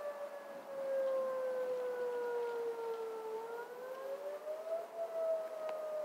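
Outdoor civil-defense warning siren being tested, sounding a wailing tone. The pitch slowly falls, rises again about three and a half seconds in, then begins to fall once more.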